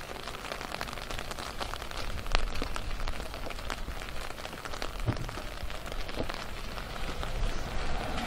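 Steady rain falling, with close drops ticking irregularly and a single louder knock about two seconds in.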